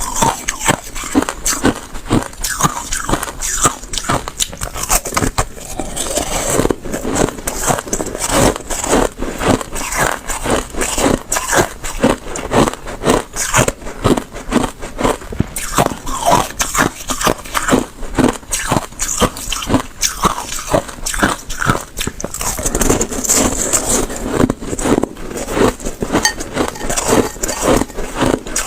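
Slushy ice being bitten and chewed, a continuous run of wet, crackling crunches.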